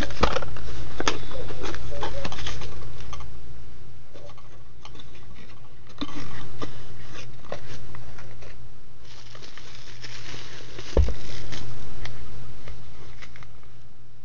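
Plastic bubble wrap crinkling and crackling as a handheld radio is worked out of its bubble-wrap bag, in irregular bursts of handling noise, with a single low thump about three-quarters of the way through.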